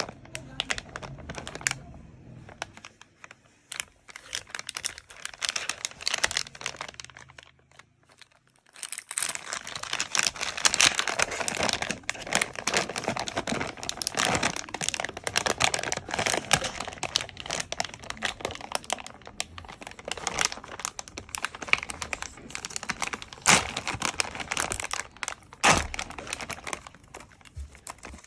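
Plastic snack pouch crinkling and crackling as it is handled and opened, quieter at first and louder and busier from about a third of the way in, with a sharp snap near the end.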